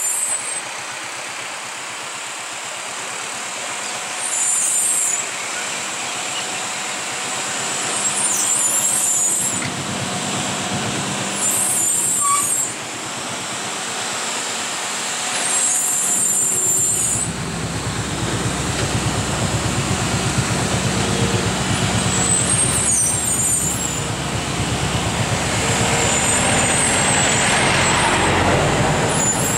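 Heavily loaded lorry on a steep hill road, its air brakes hissing in short bursts every few seconds over steady road noise. A low diesel engine rumble grows louder about halfway through.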